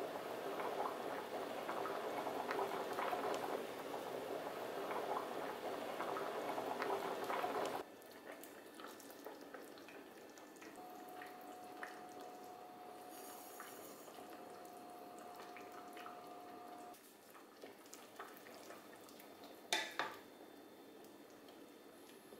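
Red lentils boiling hard in a stainless-steel stockpot under a layer of foam, a dense bubbling that stops abruptly about eight seconds in. After that comes a quieter simmer, with two sharp knocks near the end.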